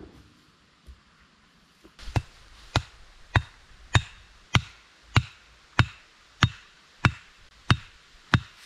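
Wooden stake being driven into the ground with blows from an axe: eleven sharp, evenly spaced knocks, about one every 0.6 seconds, starting about two seconds in.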